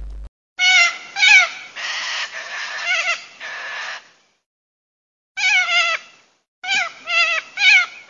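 Budgerigar chattering, wavering chirps mixed with scratchy chatter for about three and a half seconds. After a short silence, a cockatoo gives a run of short, wavering screeches.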